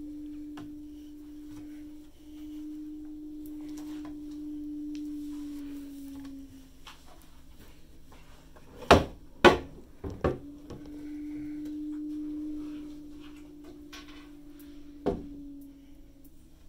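Cabin drawers being handled: three sharp knocks close together mid-way as a drawer is pushed shut, and one more knock near the end. A steady single-pitched hum runs before and after the knocks, pausing while they happen.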